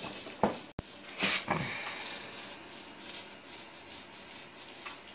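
A short knock, then a brief rustle about a second in, followed by low, steady room tone.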